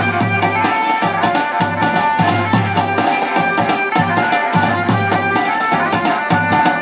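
Loud festival music: a fast, steady drum beat under held melody notes.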